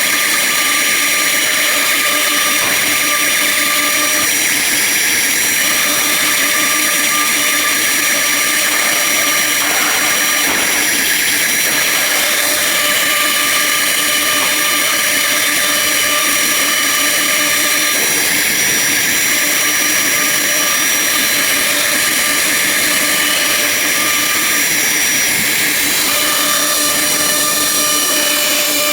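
Blue Elephant 1325ATC four-axis CNC router running: a steady spindle whine over a loud hiss, with a higher tone dropping out and returning every few seconds.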